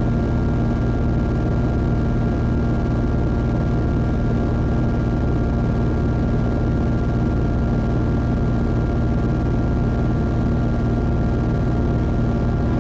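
Experimental synth drone music: a thick, steady low hum with a few held tones sounding above it, unchanging.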